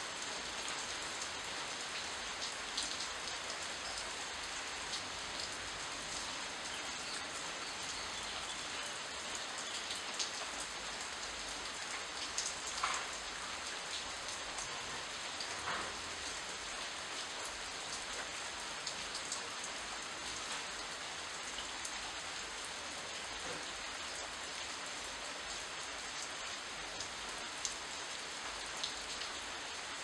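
Steady rain falling on shrub leaves, an even hiss with scattered louder drop ticks.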